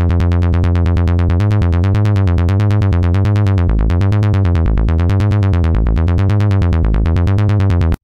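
Korg microKORG software synthesizer playing its "AcidSawBass" preset: a rapid, evenly spaced run of sawtooth acid bass notes with shifting pitches. The pattern starts and cuts off abruptly.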